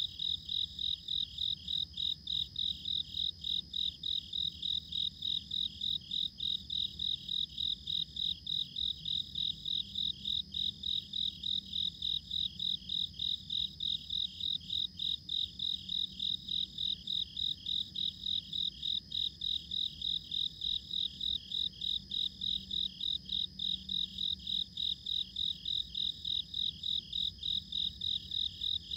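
Crickets chirping steadily in an evenly pulsed, high-pitched rhythm of about three chirps a second.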